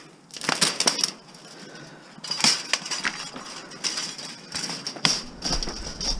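Scrap metal clanking and clattering as pieces are handled and tossed, in several separate rounds of sharp knocks with a bright metallic ring.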